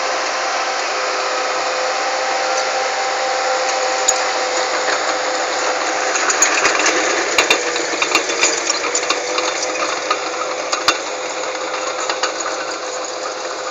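Komatsu D31PX crawler bulldozer's diesel engine running steadily as the dozer travels, with sharp clanks and rattles from its steel tracks between about six and eleven seconds in.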